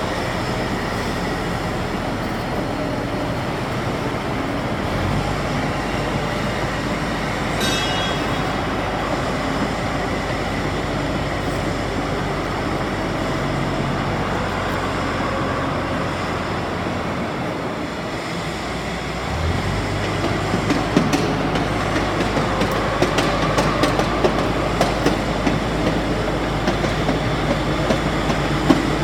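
Crawler bulldozer's diesel engine running steadily, its pitch shifting about five seconds in and again near twenty seconds. From about twenty seconds in, a run of sharp metallic clanks from the steel tracks joins it as the machine moves.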